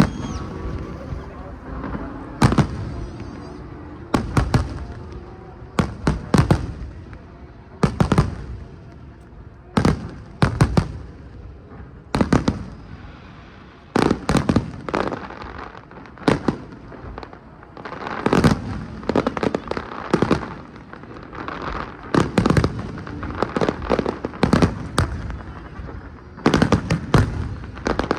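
Fireworks display: shells bursting in a steady run of loud bangs, often several in quick succession, about every one to two seconds.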